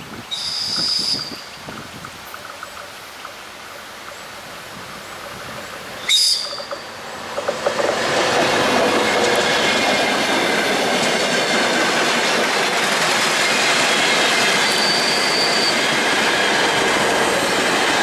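DR1A diesel multiple unit approaching and passing close by. A short high-pitched tone sounds just after the start and again, louder, about six seconds in. From about eight seconds the passing coaches make a steady loud rush of wheel and rail noise.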